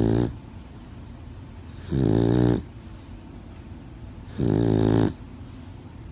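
Loud, regular snoring: a pitched snore about every two and a half seconds, each lasting well under a second, with quiet breathing gaps between.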